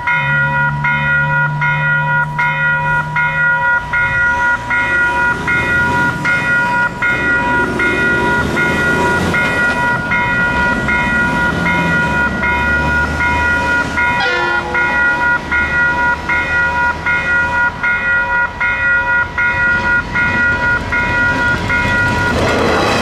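Railway level-crossing warning bell ringing in an even, repeating rhythm while the crossing is closed for an approaching train. Just before the end the bell stops and the noise of the Te Huia passenger train arriving at the crossing takes over.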